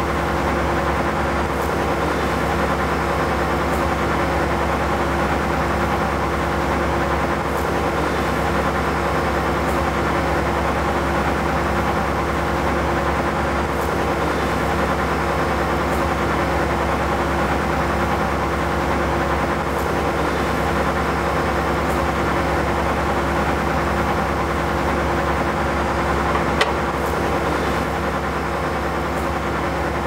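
Fendt Ideal 7T combine harvester running steadily: an even mechanical hum with constant tones. A single brief click comes near the end.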